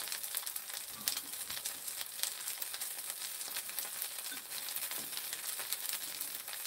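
Kimchi pancake (kimchi jeon) sizzling in oil in a frying pan on a portable gas stove: a steady crackling hiss with many fine pops, and a few faint soft knocks.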